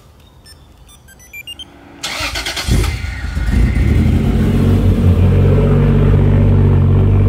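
A few short electronic beeps as the Viper remote start is triggered, then the Toyota Chaser's engine cranks on the starter about two seconds in, catches, revs up briefly and settles into a steady idle.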